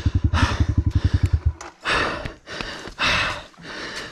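A pit bike's single-cylinder engine idling with a fast, even chug that cuts off about a second and a half in. Heavy close-up breathing, about one loud breath a second, runs through it and carries on after the engine stops.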